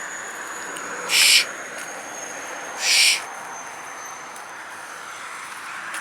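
Two short bursts of hiss, about a second and three seconds in, each lasting about a third of a second, over a faint steady high whine.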